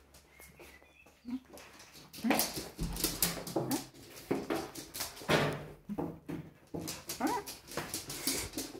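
A dog whimpering and whining, several short high whines that bend up and down starting about two seconds in, with sharp clicks and scuffs in between; the dog is stressed.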